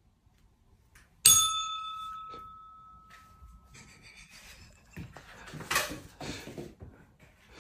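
A single bright bell ding about a second in, ringing out and fading over about two seconds. A few short rustling and knocking noises follow near the end.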